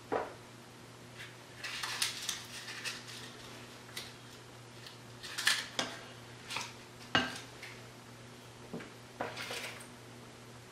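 Metal spoons clinking and scraping against a bowl and baking pans as cake batter is spooned into cupcake cups, in a dozen or so irregular short knocks.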